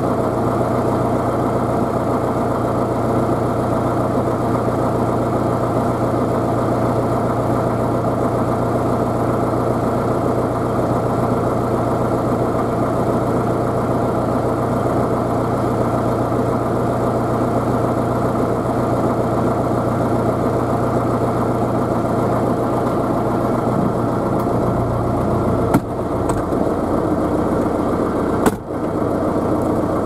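Diesel tractor engine idling steadily, with a constant multi-toned drone. Near the end the low note shifts, and two sharp knocks sound about three seconds apart.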